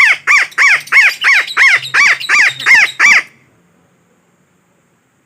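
Parakeet (betet) giving a fast run of loud, harsh squawks, about three a second, that stops about three seconds in. This is a call used as a lure to draw in wild parakeets.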